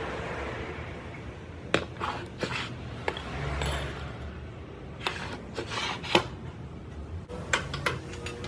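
Metal parts clinking and knocking against each other: a series of sharp, irregular clinks over a steady low hum.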